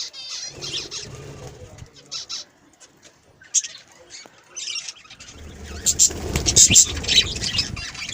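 Pet budgerigars chirping and chattering in short high calls, with louder rustling and wing flutter in the second half, as the birds come onto a hand.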